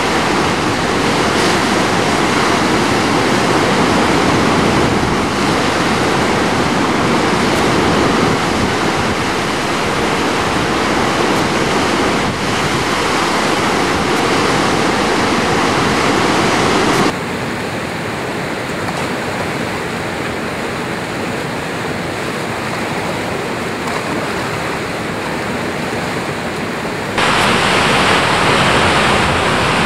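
Whitewater of a river rapid rushing steadily around a standing wave. The rush drops abruptly to a quieter, duller level about 17 seconds in and jumps back up about 27 seconds in.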